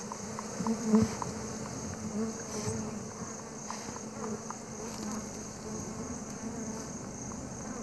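Honeybees roused from their raided hive buzzing, a wavering hum that swells and fades, over a steady high chirring of night insects.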